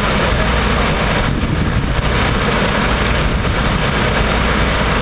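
Engine of a hydraulic rescue-tool pump running steadily at constant speed, powering the hoses for the cutting and spreading tools.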